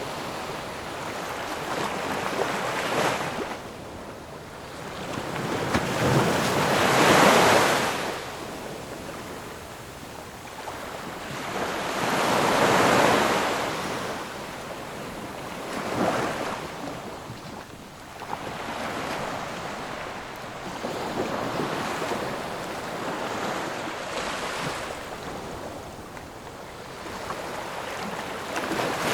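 Ocean waves breaking and washing on the shore in a series of swells every few seconds; two of them, about a quarter and nearly halfway through, are the loudest.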